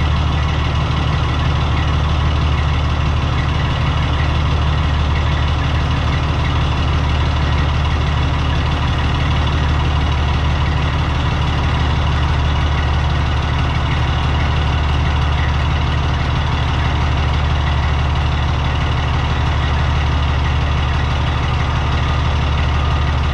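Freightliner Columbia semi truck's diesel engine idling steadily while the emptied air system builds pressure back up before the air-ride suspension rises.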